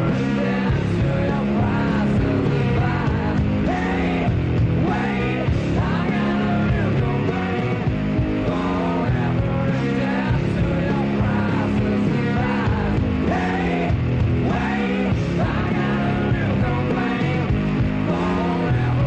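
A rock song playing: a singer over a full band, loud and continuous.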